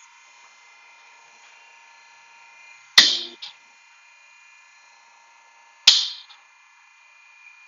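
Two sharp bangs about three seconds apart, each trailing off in a brief high ring, with a fainter knock about half a second after each.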